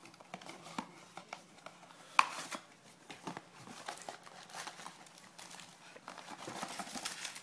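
Cardboard blaster box of baseball card packs being opened by hand: irregular rustling, scraping and light knocks of cardboard, with one sharp click a little over two seconds in.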